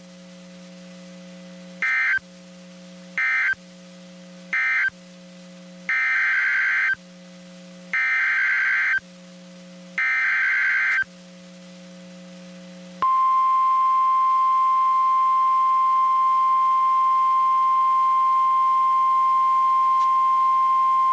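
NOAA Weather Radio Emergency Alert System data tones: three short buzzy bursts of the end-of-message code, then three longer bursts of the SAME header, over a low steady hum. About two-thirds of the way through, the steady 1050 Hz warning alarm tone comes on and holds, marking the start of the next severe thunderstorm warning.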